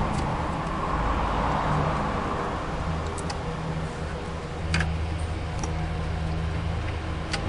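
A car engine running steadily with a low hum, with a few sharp clicks about three, five and seven seconds in.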